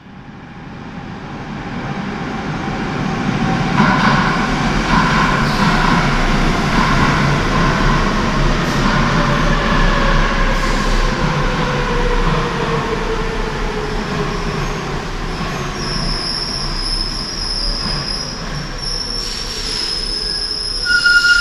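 Madrid Metro Line 6 train entering the station: a rising rumble as it arrives, then a motor whine falling in pitch as it slows. A high, steady brake and wheel squeal sets in a few seconds before it stops.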